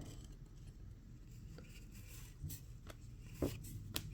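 Faint handling of baseball trading cards being flipped through by hand: a few light clicks and flicks of card stock over a low room hum.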